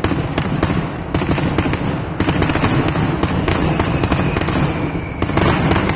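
Aerial fireworks shells bursting in a dense, continuous barrage of bangs and crackles over a steady rumble.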